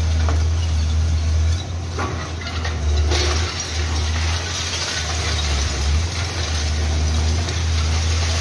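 Long-reach demolition excavator's diesel engine running steadily as its boom works at a collapsed concrete building. Sharp knocks about two and three seconds in are followed by a rushing clatter of falling debris.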